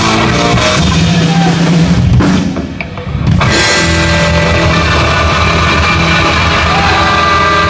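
Heavy metal band playing live at full volume: drum kit with guitar, a brief drop about two and a half seconds in, then held guitar and bass chords ringing out.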